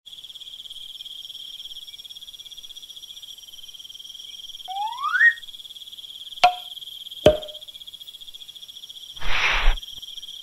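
Crickets chirping steadily in a high, fast-pulsing trill. About five seconds in there is a quick rising glide in pitch, followed by two sharp clicks a second apart, and a brief rush of noise near the end.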